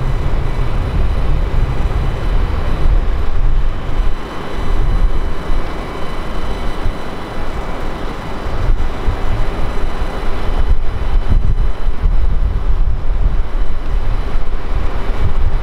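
Jet airliner engines making a loud, steady rumble, with wind buffeting the microphone.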